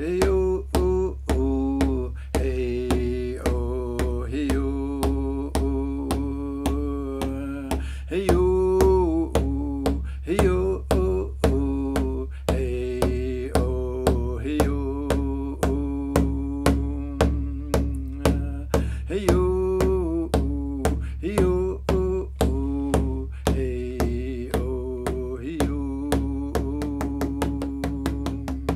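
A man chanting in vocables ('hey-o') over a steady beat on a rawhide hand drum, about two beats a second. The drumbeats quicken near the end.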